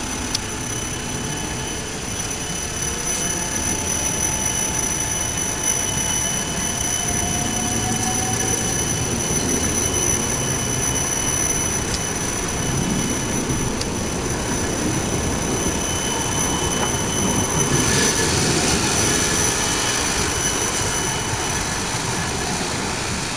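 Siemens Combino low-floor electric tram rolling slowly past on its rails, a steady rumble with high-pitched tones running throughout. A hiss of noise comes in about three-quarters of the way through.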